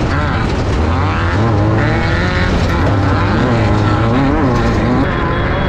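Class 5/1600 off-road race car's engine, an air-cooled 1600 cc Volkswagen flat-four, heard from inside the car under hard driving. The revs rise and fall several times as the driver works the throttle and gears, over a constant rattle and rush of the car on the dirt.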